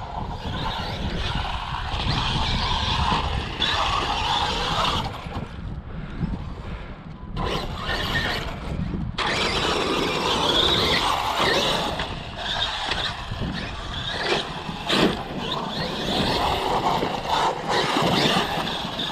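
Traxxas X-Maxx RC monster truck running over rough, rocky dirt: drivetrain noise and tires on gravel, with scattered knocks as it hits rocks and a couple of short lulls.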